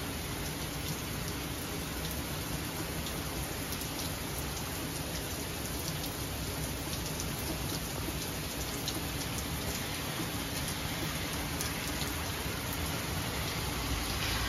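Heavy rain pouring steadily, with many sharp taps of single drops hitting close by. Near the end, a car's tyres hiss along the wet road.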